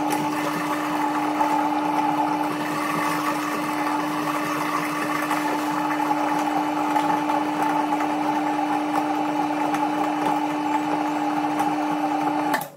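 Italinox TC12 electric meat mincer running with a steady motor hum as quail meat is fed through it and pushed out as mince. The hum stops abruptly near the end.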